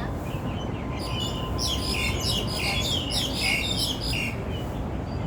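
Small birds chirping in a quick, busy flurry of short high notes that starts about a second in and thins out after about four seconds, over a steady low background rumble.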